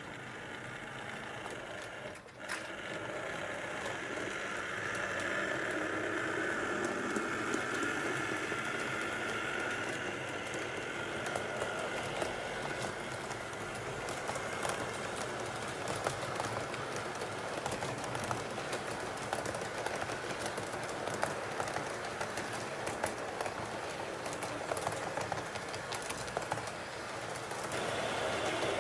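HO-scale model train running along the track: a small electric motor whine, clearest in the first third, over a steady fine clicking of the wheels on the rails.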